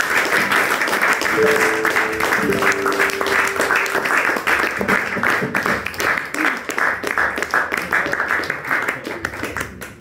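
Audience applause, dense clapping with one held call from a voice about a second in, thinning out near the end.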